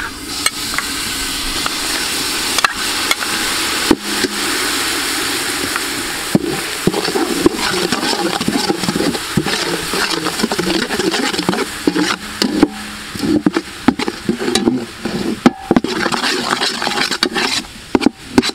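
Red sugar syrup sizzling steadily in a hot aluminium pot. From about six seconds in it bubbles and spits as it caramelizes, and a metal ladle scrapes and knocks against the pot as it is stirred.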